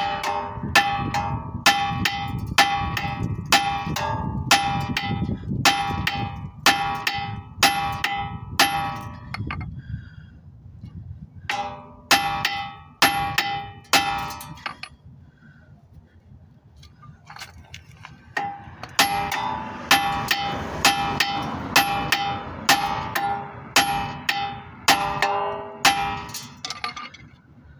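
Steel hammer striking the 2016 Dodge Journey's front suspension at the lower control arm's ball joint, ringing metal clangs about two a second in three runs with short pauses between. The ball joint is stuck in the knuckle and is being hammered to shock it loose because no ball-joint separator is at hand.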